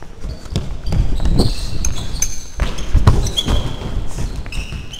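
Futsal match heard from a chest-mounted action camera on a running player: heavy thuds of his footsteps, and of the ball on the hard sports-hall floor, with several short, sharp shoe squeaks.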